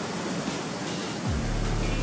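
Sea surf washing over a rocky shore, a steady rushing hiss. Background music with low bass notes comes in just over a second in.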